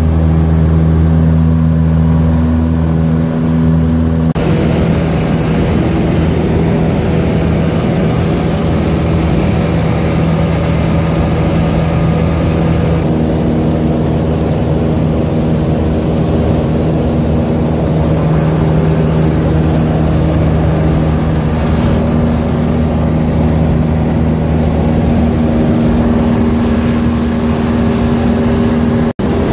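Piper Tri-Pacer's four-cylinder piston engine and propeller droning steadily, heard from inside the cabin. About four seconds in the sound grows noisier and rougher as more rushing noise comes in, and it breaks off for an instant near the end.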